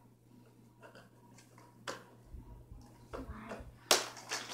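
Scattered plastic clicks and knocks as a toy dart blaster is handled and worked on with a screwdriver at its battery compartment. The loudest is a sharp clack about four seconds in.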